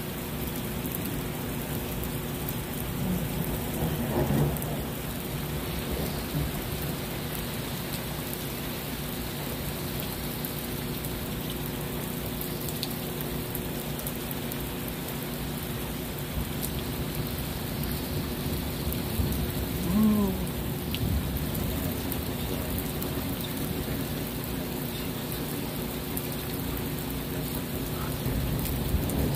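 Steady rain falling during a thunderstorm, with thunder beginning to rumble and swell near the end.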